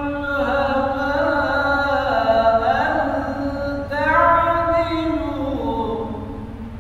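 A man's voice reciting the Quran in Arabic, melodic chanted recitation with long held notes and drawn-out ornamental glides. The final phrase glides down and fades out near the end.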